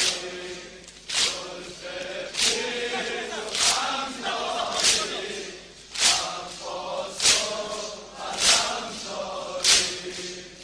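A crowd of men chanting a Muharram mourning lament together, with a sharp slap about every 1.2 seconds: rhythmic chest-beating (matam) keeping time with the chant.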